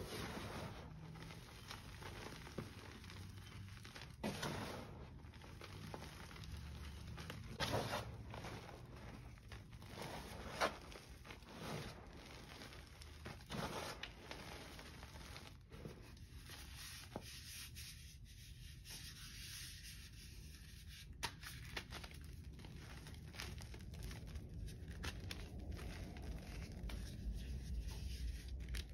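Gym chalk crushed by hand: lumps and a block of chalk crumbling and crunching in loose powder, a soft gritty rubbing with sharper crunches every few seconds.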